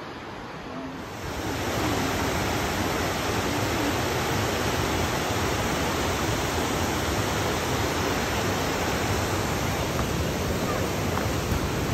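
Water rushing over a rocky cascade: a steady, dense rush that becomes louder about a second in.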